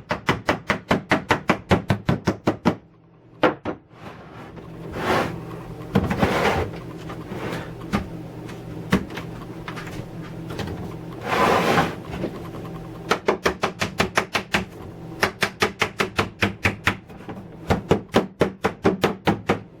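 Rapid light tapping on plastic hinge pins, about five taps a second, driving them into the hinges of a plastic chainsaw case. There are two long runs of taps, with handling and rustling of the plastic in between.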